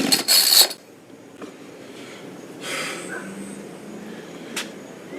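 Chainsaw pull-start cord yanked hard once in a raspy burst, the engine not catching. The owner thinks he has flooded it. This is followed by quiet, a soft rustle, and a sharp click near the end.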